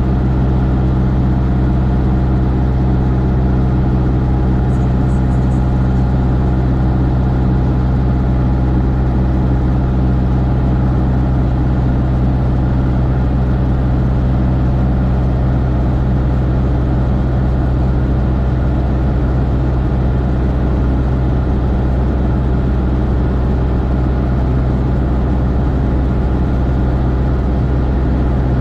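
Cessna light aircraft's piston engine and propeller running steadily in flight, heard inside the cockpit as an even, low drone with no change in pitch.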